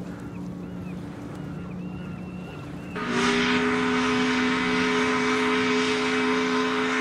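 Ship's horn giving one long blast that starts suddenly about three seconds in: a deep two-note chord with a hissing edge. Before it, a steady low hum of ship's engines runs with faint high calls.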